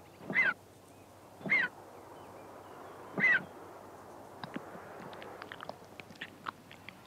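Griffon vulture chick begging at the nest: three short, rising-and-falling calls about a second and a half apart, then a run of quick light clicks and taps while the chick takes food from the adult's beak.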